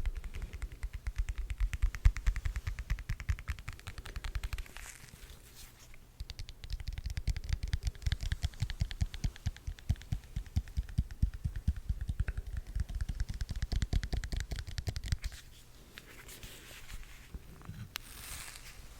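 Rapid tapping and scratching right against the microphone, many clicks a second with a thump under each, the close-up sound of ASMR tools worked on the mic. It pauses briefly and then goes quieter and softer near the end, with a brief crinkling.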